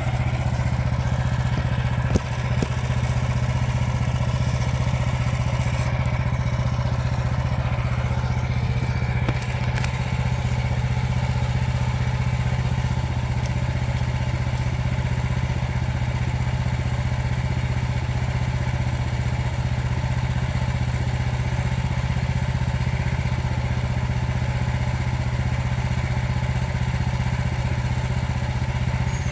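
Small gasoline engine of a Frontier portable bandsaw sawmill running steadily at constant speed while the band blade saws through a log to cut a plank. A single short knock comes about two seconds in.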